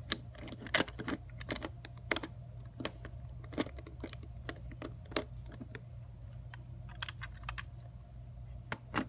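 LEGO bricks and plates clicking and clacking as hands press pieces onto a brick build, in irregular taps, over a steady low hum.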